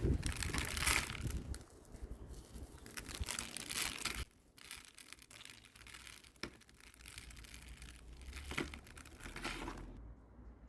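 Crinkling and rustling from hands handling succulents during repotting, loudest in the first second or so, then softer scattered crackles and clicks.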